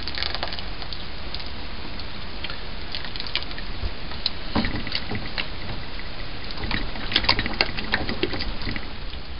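Thin, soupy corn mash being ladled and stirred in a stainless steel stockpot: soft dribbling and splashing with scattered light clinks, busiest about seven seconds in, over a steady low hum. The mash runs thin because its starch has been converted to sugar by the amylase enzyme.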